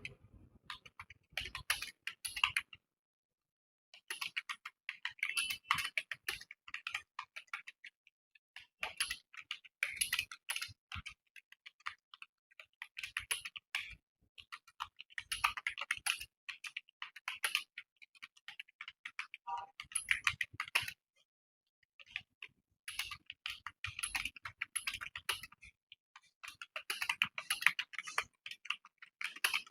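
Steady fast typing on a computer keyboard: rapid keystroke clicks in runs of several seconds, with two brief pauses, about three seconds in and again about two-thirds of the way through.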